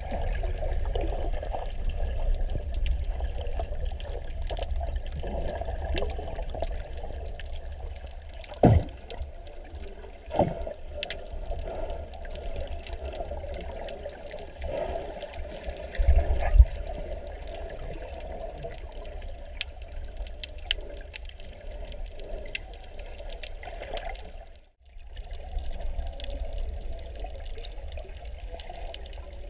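Water noise heard underwater: a steady low rumble and sloshing of water, broken by a couple of sharp knocks partway through and a louder surge later on.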